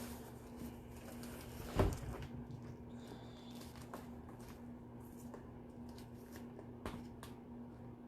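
Faint handling of packaging and craft supplies, with a single knock about two seconds in and a few light ticks near the end, over a steady low hum.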